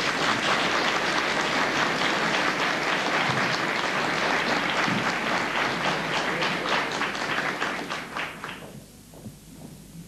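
Studio audience applauding, a dense patter of clapping that dies away about eight and a half seconds in.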